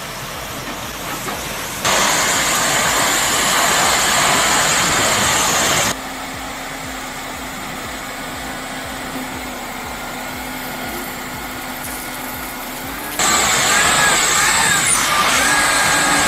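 Engine-driven machinery running outdoors. Loud, even noise cuts in abruptly about two seconds in, drops to a quieter steady hum about six seconds in, and returns suddenly near the end.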